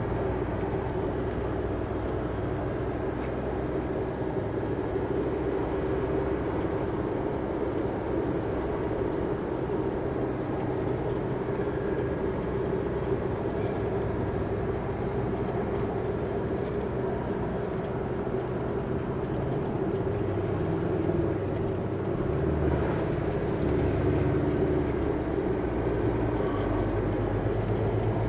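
Chevrolet S10 pickup under way, heard from inside the cab: engine and road noise with a constant mid-pitched drone, a little louder in the last few seconds. The engine is being run at higher revs to bring out a strange noise the owner is chasing.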